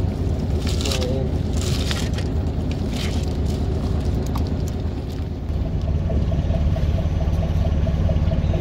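Fishing boat's engine running steadily, getting louder about five and a half seconds in, with a few short hissing noises over it in the first three seconds.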